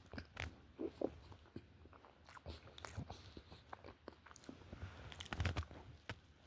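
Close-up chewing of a chocolate donut topped with nuts: irregular soft crunches and mouth sounds, with a louder run of crunching about five seconds in.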